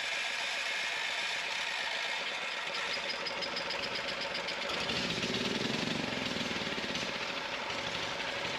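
Engine fitted with a Thunderstorm Generator plasmoid unit running steadily with an even, pulsing beat, taking on a deeper, slightly louder note about five seconds in.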